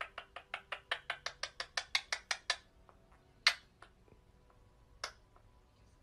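Ringneck parakeet making a quick run of sharp clicks, about six a second, that grows louder for two and a half seconds. Two single louder clicks follow.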